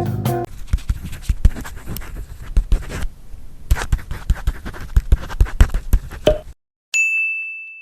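Irregular clicks, taps and scratchy handling noises for several seconds, then a brief silence and a single bright ding that rings out and fades.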